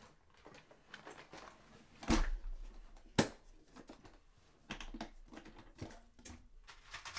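Clatter of hand tools being picked out of a box: scattered clicks and knocks, with a heavy knock about two seconds in, a sharp click a second later, and a run of lighter clinks near the end.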